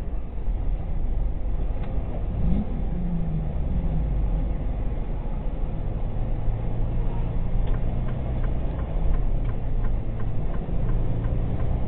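Steady engine and road rumble heard from inside a vehicle cab on a highway, with the engine pitch rising and then falling about three seconds in. Light clicks repeat about twice a second through the second half.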